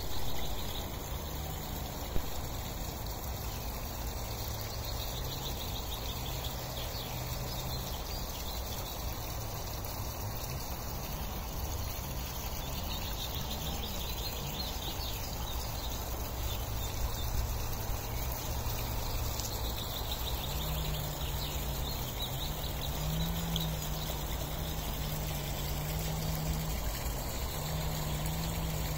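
Water trickling steadily into a pond, with a low hum underneath.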